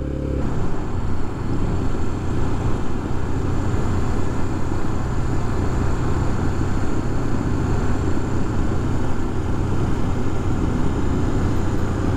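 BMW F700GS motorcycle under way: its parallel-twin engine running steadily beneath a broad rush of wind and road noise on the helmet microphone.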